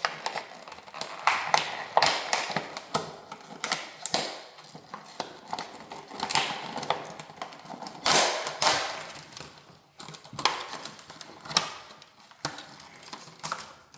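A new dimmer switch and its packaging being handled, with irregular clicks and taps mixed with crinkling rustle.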